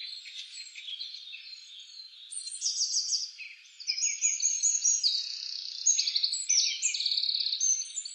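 A chorus of small birds chirping and trilling, high-pitched, with quick repeated notes overlapping one another. It thins out briefly about three and a half seconds in, then grows fuller.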